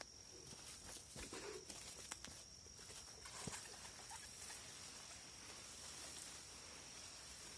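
Faint spray of water from a plastic watering can's rose pattering onto lettuce leaves, starting about three seconds in after a few footsteps and knocks, with a steady high tone throughout.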